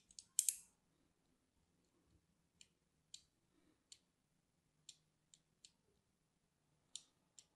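A fine pointed metal tip scoring thin lines into a hard bar of soap: about ten short, crisp scratches at irregular intervals, the loudest about half a second in.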